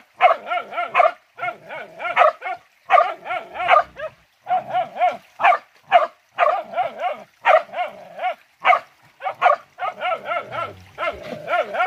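Hunting dog barking steadily and rapidly, about two barks a second, each bark wavering in pitch.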